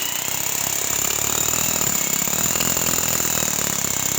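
Electric drill boring a hole through a cement wall, running steadily at full speed with a high whine over the grinding of the bit.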